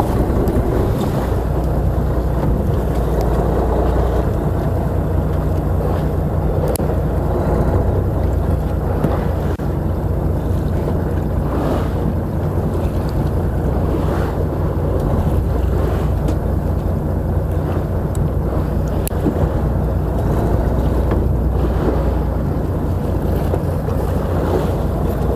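Fishing boat's engine running with a steady low drone, with wind on the microphone and waves.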